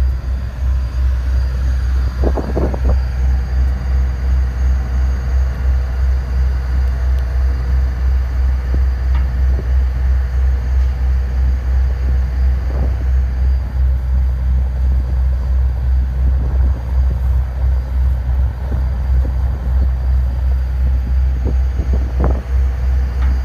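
Deep, steady engine drone of a vessel underway, heard from its deck, with a regular throb. A few light knocks stand out about two seconds in and again near the end.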